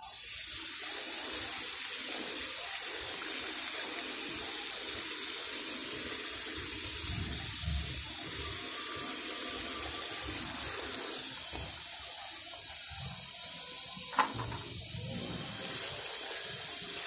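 Water rushing out of a garden hose and splashing onto a concrete floor with a steady hiss, and one sharp click late on.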